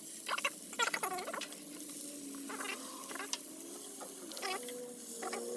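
Sped-up audio from pan-frying: short squeaky, chirping glides and a few faint held tones over a soft hiss.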